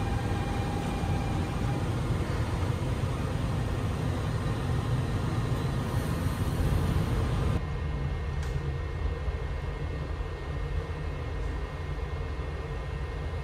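Steady low hum and hiss inside a JR 285 series sleeper train car standing at a station. The hiss drops abruptly about seven and a half seconds in.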